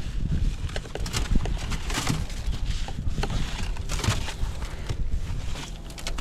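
Snow shovel scraping and chopping through wet, slushy snow beside a parked car, in irregular crunching strokes about a second apart, over a steady low rumble.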